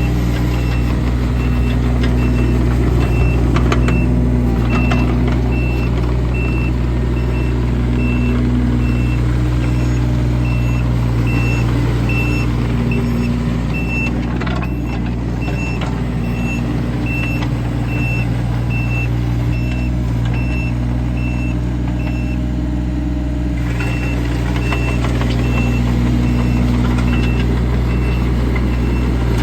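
2005 John Deere 17ZTS mini excavator's small Isuzu diesel running steadily, its pitch wavering as the hydraulics take load. The machine's motion alarm beeps a short high tone about once a second throughout.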